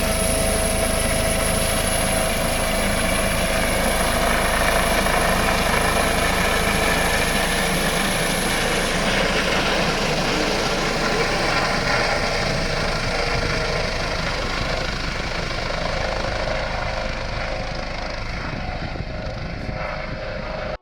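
Helicopter running close by: steady, loud rotor and engine noise with a high whine that fades out about halfway through. The sound cuts off suddenly at the end.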